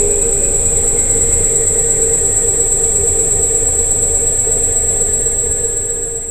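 Electric scooter running: a steady high-pitched whine and a lower motor hum over a low rumble, starting to fade at the very end.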